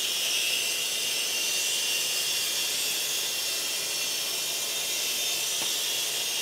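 Hydraulic pump and motor of a 1/14-scale LESU 9150 RC excavator running steadily, a high, even whine and hiss, while the upper body slews round on its turntable.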